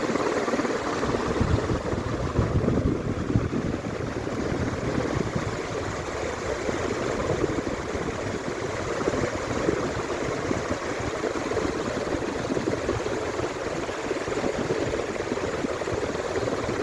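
48-inch PBS ceiling fan running, a steady whoosh of air moved by its blades.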